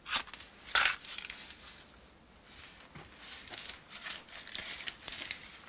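Irregular soft crackles and rustles in a small room, with the loudest crackle just under a second in.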